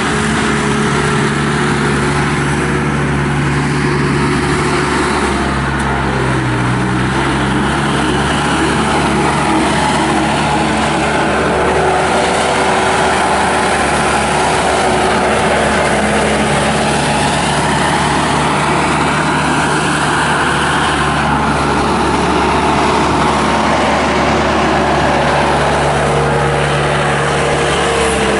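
Bobcat S250 skid steer loader's Kubota turbo diesel engine running steadily while the machine works, its pitch shifting slightly, with a higher whine that slowly rises and falls.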